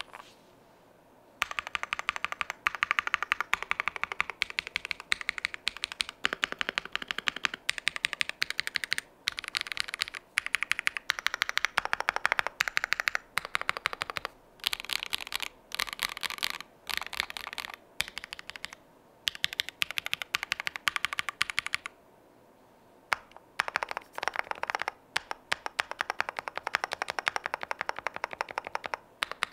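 Mechanical keyboard typing on KTT Chalk switches, lightly lubed with Tribosys 3203, in an Akko ACR Pro board. The keystrokes give the muted, matt "chalky pops" sound, in fast bursts of typing broken by short pauses.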